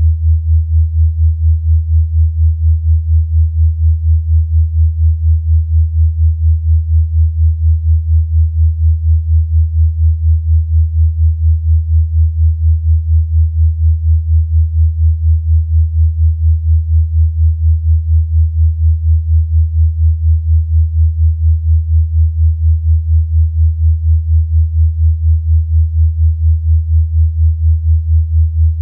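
Electronically generated low pure tone near 100 Hz, held steady and pulsing rapidly and evenly in volume: a 'healing frequency' tone for relaxation.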